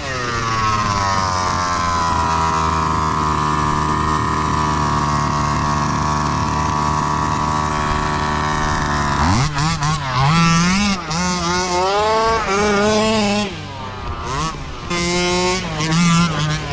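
Small 29cc two-stroke petrol engine of an HPI Baja 5B RC buggy running at a steady speed, then revved hard from about nine seconds in and revving up and down as the car drives off.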